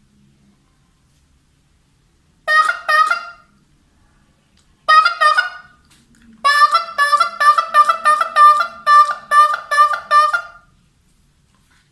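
A man imitating honking with his voice: two short honks, then a single honk, then a quick run of about a dozen honks at a steady pitch.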